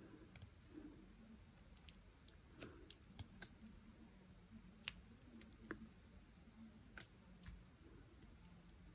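Faint, scattered small clicks and taps of a diamond-painting drill pen picking up and pressing drills onto the sticky canvas, over near silence.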